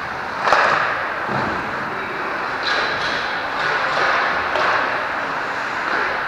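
Ice hockey play in an indoor rink: skates scraping the ice under a steady hiss, and sharp stick-and-puck knocks, the loudest about half a second in and lighter ones around three and four and a half seconds in.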